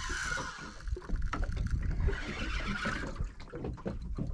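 Wind and water noise aboard a small fishing boat, with a low rumble and a few light clicks and knocks about three seconds in.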